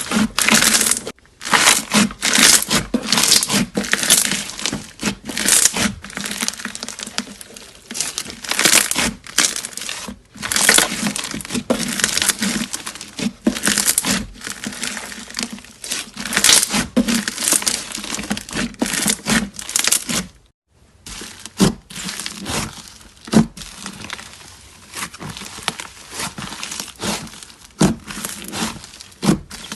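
Hands squeezing and pressing slime: a dense run of irregular squishing bursts and sharp clicks, with a brief break about two-thirds of the way through.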